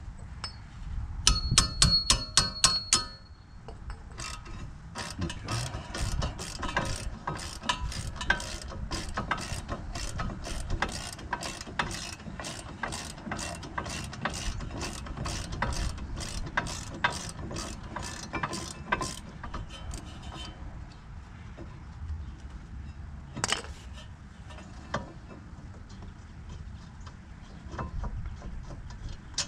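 Hand ratchet wrench clicking while a rear brake caliper bracket bolt is backed out. A loud, fast run of clicks comes near the start, then steady clicking at about two to three a second for around fifteen seconds. A single sharp knock follows later.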